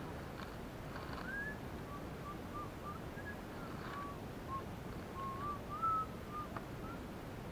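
A series of short, high whistled notes, some gliding upward, scattered irregularly over a faint steady hiss, with one louder note about six seconds in.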